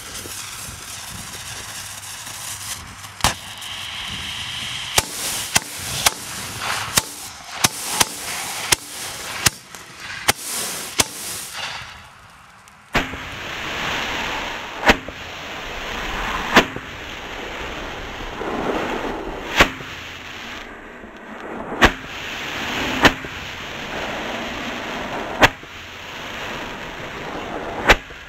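A 10-break Shogun Decimator shell firing upside down in its fiberglass mortar. A run of sharp pops and cracks is followed, about halfway, by a sudden loud rush of hissing. Bangs then come one to three seconds apart as the breaks go off at ground level.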